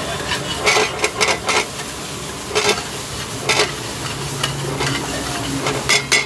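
A metal spatula scrapes and clanks against a black frying pan as anda bhurji (scrambled eggs) is stirred and chopped, over a steady sizzle. The sharp strikes come in a quick cluster about a second in, singly twice in the middle, and as a pair near the end.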